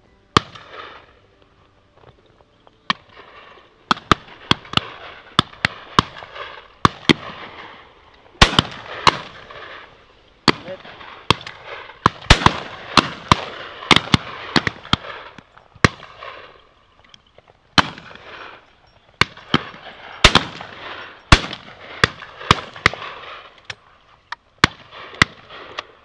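A line of shotguns firing at driven game birds: dozens of sharp shots from near and farther along the line, often several a second, each followed by a short echoing tail.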